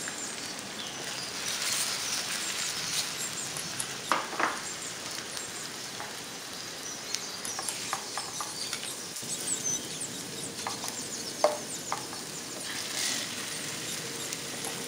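Potato slices sizzling as they shallow-fry in oil in a frying pan, with clicks and scrapes of kitchen tongs turning them against the pan. The sharpest knocks come about four seconds in and again past eleven seconds.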